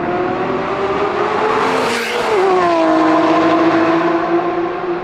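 Lamborghini supercar engine running hard, its pitch rising for about two seconds, then dropping sharply and holding steady.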